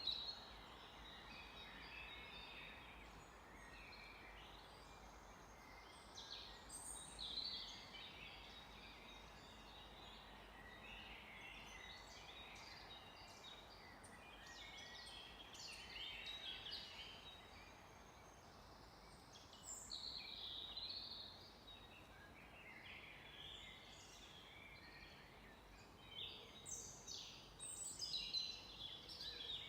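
Songbirds singing and calling, many short chirps and trills overlapping, over a faint steady hiss. The calls are busiest about 7 s in, around 20 s, and near the end.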